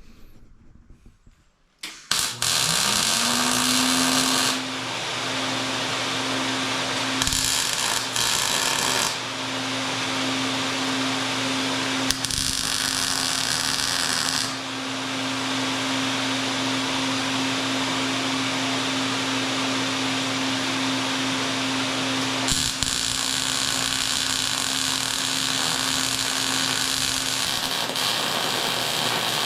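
Electric angle grinder spinning up about two seconds in, then running steadily on metal. Its noise rises and falls several times as the wheel bears on the workpiece.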